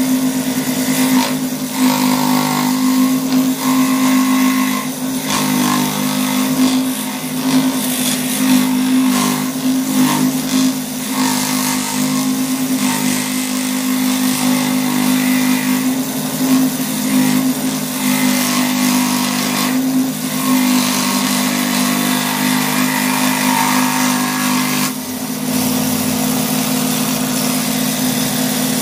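Scroll saw running, its blade stroking up and down as it cuts a curved outline through a wood blank, with a steady motor hum under the cutting noise. About 25 seconds in the sound dips briefly and then runs more evenly.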